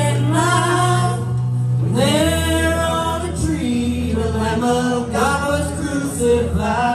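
Live church praise team singing a gospel song, a woman's and a man's voices through microphones over steady instrumental accompaniment, with long held notes.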